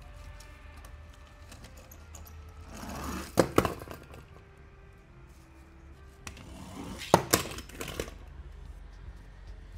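Toy packaging being handled and opened: two short bouts of rustling, each with a few sharp clicks, about three and a half and seven seconds in.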